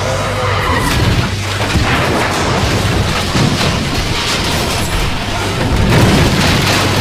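A 1971 Chevrolet Monte Carlo crashing and rolling over: repeated heavy booms and crashes of the car body slamming into the ground, as a film sound effect with score music underneath.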